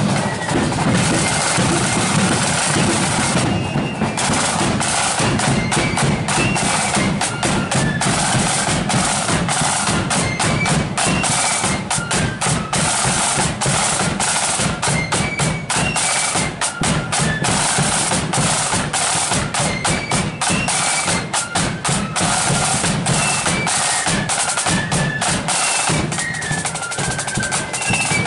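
Marching flute band's snare drums playing a rhythmic street beat with rolls, over a bass drum.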